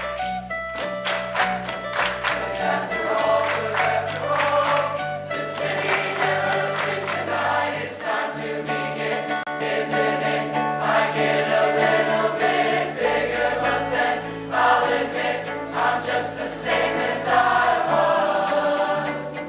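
Background music: a song with several singing voices over a steady beat, the bass note shifting every few seconds.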